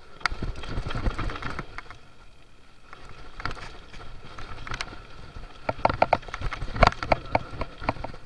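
Mountain bike descending a rough dirt trail: tyres running over rocks and roots while the frame and parts rattle and clatter with irregular knocks. The rattling is heaviest about half a second in and again from about six seconds in.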